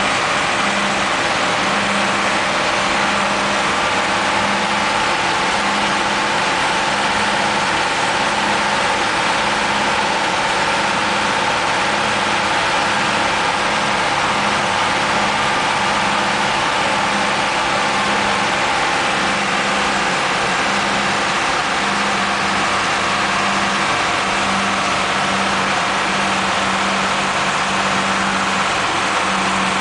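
Bus engine running at a steady pace with constant road and wind noise, heard from inside the bus cab.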